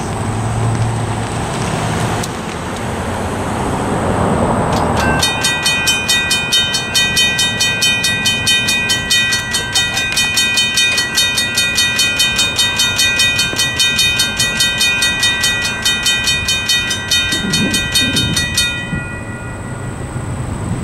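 A car drives past. About five seconds in, the crossing bells start ringing: a Modern Industries mechanical bell and an NEG electronic bell, struck fast and evenly at about four strokes a second as the crossing activates and the gates come down. The ringing cuts off suddenly a couple of seconds before the end, once the gates are down.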